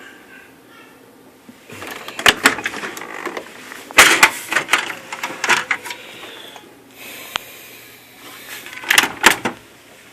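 Oki MB480 printer clattering in three bursts of sharp plastic clicks and knocks, the loudest about four seconds in.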